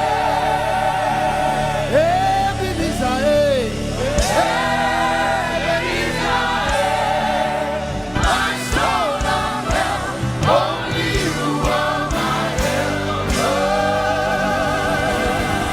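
Live gospel praise music: choir and lead voices singing with vibrato over a band, with steady bass notes and sharp percussion hits.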